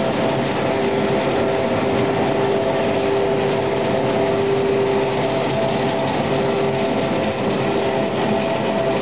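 Feed pellet production line running: belt conveyor and pellet mills together give a dense, steady machinery noise with a few constant humming tones.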